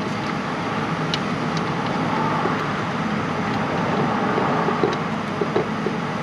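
Steady background noise with a few faint, light metallic clicks as a starter bolt is started by hand.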